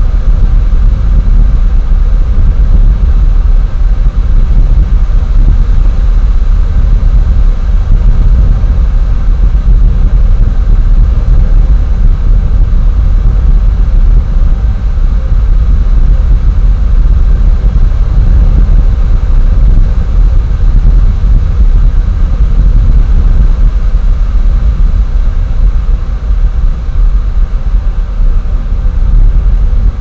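Loud, continuous low rumble with hiss above it, its level fluttering rapidly and never pausing.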